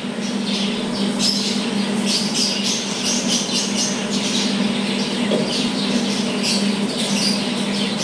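Birds chirping and squawking, many short high calls in quick succession, over a steady low hum, heard through a television's speaker.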